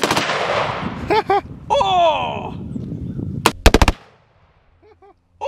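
Pump-action shotgun firing: a sharp blast right at the start that rings out with a long echo, then another shot about three and a half seconds in followed by a quick cluster of cracks.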